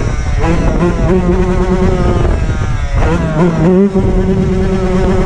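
Dirt bike engine revving: the pitch climbs twice, about half a second in and again about three seconds in, and holds steady at high revs in between.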